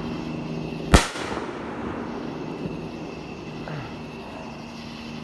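A single loud firework bang about a second in, followed by an echoing tail that fades away.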